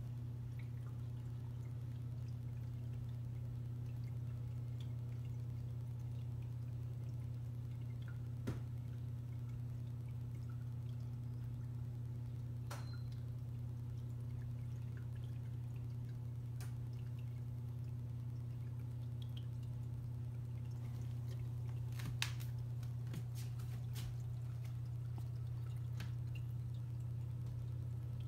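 Coralife BioCube 14-gallon nano reef aquarium running: a steady low hum, with water trickling and dripping in the tank's filtration. A few sharp ticks stand out, one about a third of the way in and a short cluster about three quarters through.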